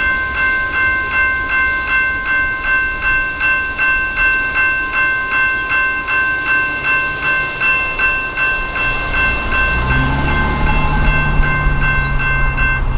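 Electronic railroad crossing bell ringing at a steady rhythm of about two strokes a second while the crossing gates rise after the train has cleared. It cuts off near the end as the gates reach upright. A car engine comes in over the last few seconds as the car drives across the tracks.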